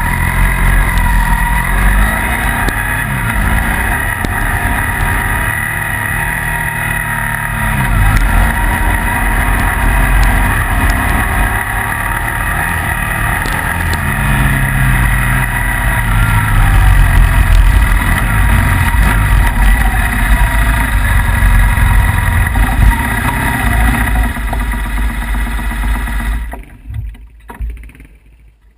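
Motorcycle engine running under load on a climb, its revs rising and falling repeatedly, with wind rush over the microphone. The sound fades out near the end.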